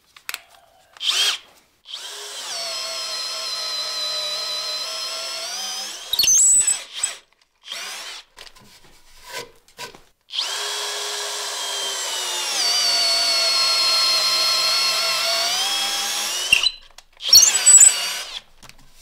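Bosch GSB 12V-30 12-volt brushless cordless drill boring a 14 mm hole into hard walnut in low gear. It runs twice with a steady motor whine, and in the second run the pitch dips as the bit bites under load. Brief sharp knocks come between the runs and near the end.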